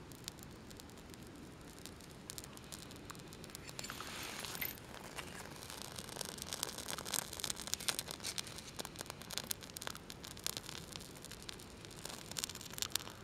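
Small fire of birch-bark tinder and dry kindling catching and crackling, with many irregular crackles and snaps that thicken from about six seconds in. A short scraping rush comes about four seconds in.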